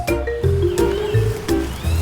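Upbeat background music with a steady bass beat and a mallet-percussion melody like a xylophone.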